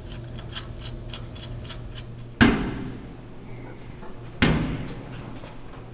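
A run of light, irregular clicks from a hand tool tightening a hose clamp, then two heavy slams about two seconds apart, each ringing out briefly.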